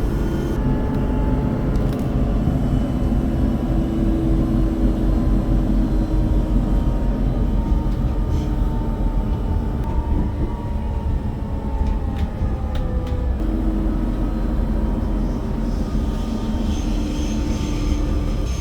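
Matterhorn Gotthard Bahn metre-gauge train running, with a steady rumble of wheels on rails and faint drifting whine, heard from inside the carriage. Near the end, a high-pitched squeal of wheels on the rails starts.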